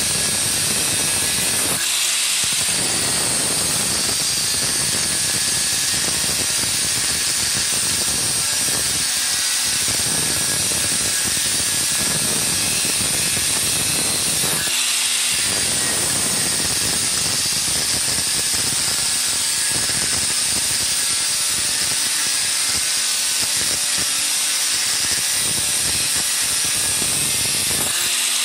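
Electric angle grinder with an abrasive cutting disc running at speed and cutting through a round steel bar, a steady loud grinding hiss. The sound thins briefly a few times, and near the end the disc comes off the bar.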